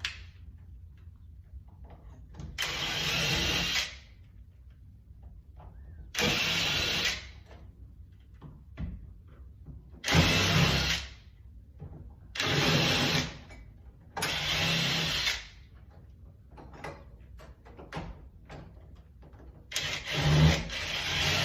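Cordless drill/driver run in about six short bursts, each about a second long, backing out the screws that hold a front-door handle set.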